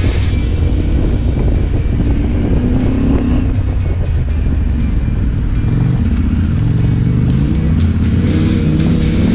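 Motorcycle engine running as the bike rides a gravel track, its pitch shifting with the throttle, under background music.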